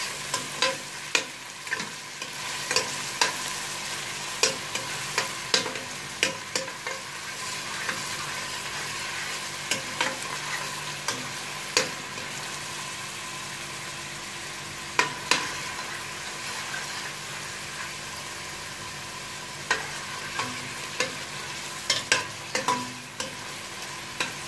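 Chopped onions sizzling in melted ghee in a stainless steel pot, with a steady hiss as they soften. A spoon stirring them clinks and scrapes against the pot at irregular moments.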